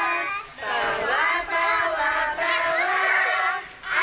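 High children's voices singing together in held, wavering phrases, with short breaks about half a second in and near the end.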